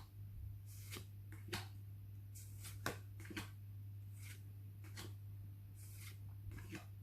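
Pokémon trading cards being handled and slid one past another: soft, scattered clicks and rustles of card stock, a few to the second or less, over a steady low electrical hum.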